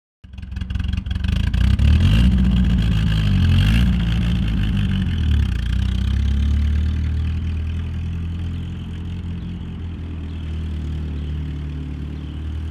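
A car engine running, its pitch rising and falling with throttle for the first few seconds, then settling into a steadier run. It starts abruptly.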